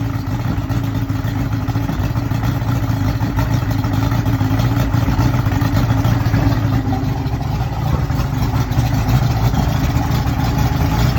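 Yamaha OX66 150 hp two-stroke V6 outboard idling low and rough on a flushing hose, running near stalling speed. The owner traced this low-idle stalling to the oil-pump (oiler) arm adjustment.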